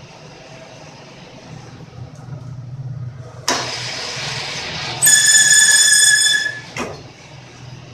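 Metal lathe running with a steady low hum while a threading pass is cut. A scraping cut starts suddenly about halfway through, then the cutting tool gives a loud, high-pitched squeal on the steel for about a second before it eases off.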